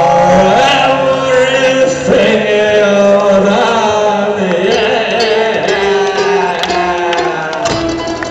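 Live band music: a violin melody and strummed acoustic guitar with a man singing, heard from the audience.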